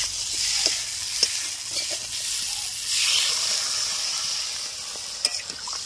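Brinjal and potato pieces sizzling in hot oil in a kadai, with a few sharp knocks of a metal spatula against the pan as they are stirred. About three seconds in, water is poured into the hot pan and the sizzle grows louder and fuller.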